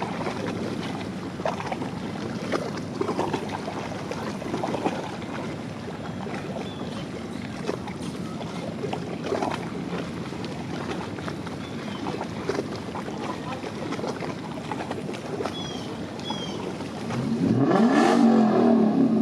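Gusty wind noise on the microphone. Near the end a jet airliner passes low, and its engine noise swells sharply with sweeping tones.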